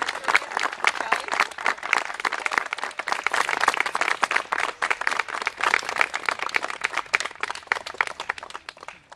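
Audience applauding: dense hand clapping that thins out and fades away near the end.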